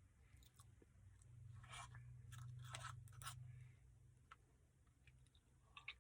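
Quiet, close chewing of a mouthful of chocolate brownie Blizzard ice cream, with a cluster of short crunches about two to three seconds in over a faint low hum, then a few soft mouth clicks.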